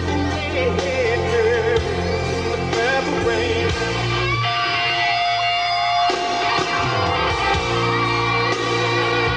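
Background music: a song with a singing voice over guitar, with one long held note about halfway through.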